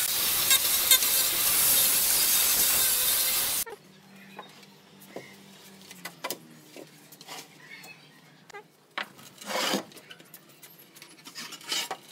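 Handheld angle grinder with a sanding disc sanding the edges of pine pallet slats, running loud and steady, then cut off abruptly a few seconds in. After that come faint knocks and one short scrape of pallet wood being handled.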